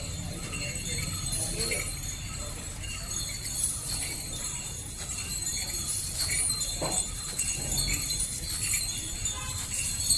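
Metal bells on a captive elephant jingling in repeated, irregular shakes over a steady low rumble.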